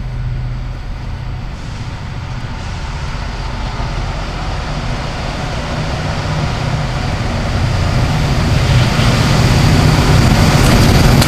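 Diesel locomotive leading a freight train, approaching slowly: its engine rumble grows steadily louder as it nears.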